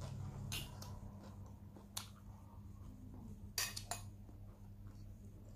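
A metal spoon clinking and scraping against a plate a few times, the sharpest pair of clinks close together a little past halfway, over a steady low hum.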